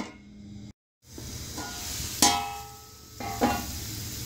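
A metal pot lid clinks as it is set on the pot. Then comes a steady hiss of water boiling in the pot, with two ringing clanks of the lid about a second apart.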